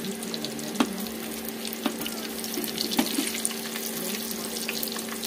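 Breaded vegetable chops deep-frying in hot oil in a karahi, the oil sizzling steadily. A few sharp clicks of a spatula against the pan come as the chops are turned.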